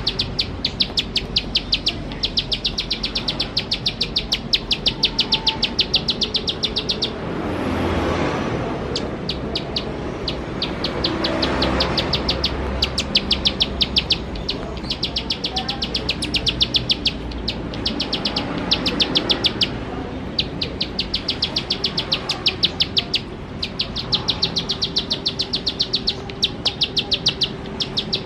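Plain prinia (ciblek sawah) singing its rapid ticking song, dry notes fired in fast runs of a second or two with short breaks between. Twice, about a third of the way in and again a little later, a soft rushing noise swells underneath.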